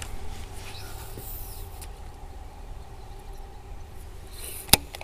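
Outdoor ambience on a boat: a low wind rumble on the microphone and a faint steady hum, broken by a sharp click at the start and a louder one near the end.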